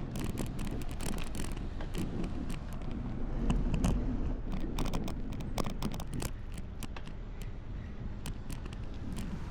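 Bicycle riding noise picked up by an action camera: a steady low wind rumble on the microphone with many irregular sharp clicks and rattles.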